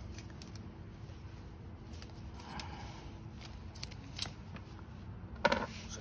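Faint, scattered clicks and light rustling as a plastic USB power socket and its metal mounting bracket are handled and turned over in the hand.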